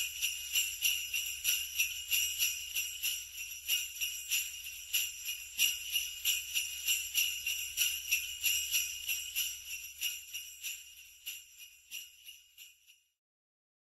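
Jingle bells shaken in a steady rhythm, about two to three shakes a second, fading out gradually and stopping just before the end.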